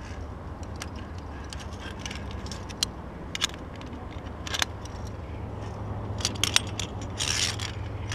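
Metal via ferrata lanyard carabiners clinking and scraping on the steel safety cable and against each other: a few sharp clicks, then a cluster of clinks and a short scrape near the end, over a low steady rumble.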